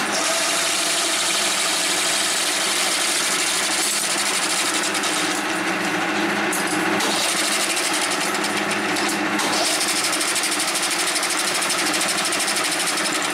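1K62 screw-cutting lathe running steadily, its headstock and gearbox giving a constant hum under a steady hiss.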